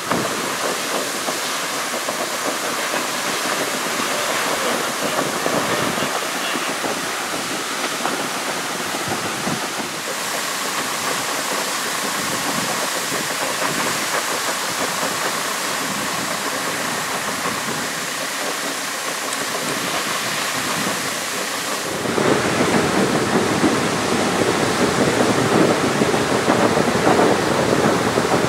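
Water jetting from a fire hydrant sheared off by a car, around 2000 gallons a minute, as a steady rushing hiss. About three-quarters of the way through it turns louder and heavier.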